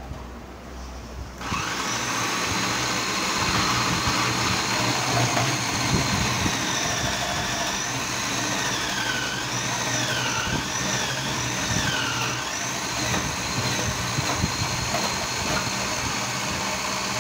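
Vitamax VM 502 food processor switched on about a second and a half in, its motor and grating disc running steadily with a high whine while grating onion. The whine wavers up and down in pitch midway through.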